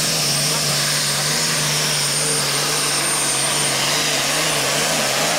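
Pulling tractor's diesel engine running steadily at full power as it drags the weight sled, its pitch holding level. Recorded through a faulty microphone.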